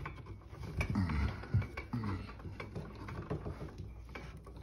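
Light clicking and rubbing of copper wires being twisted together under a red wire nut in a metal electrical box.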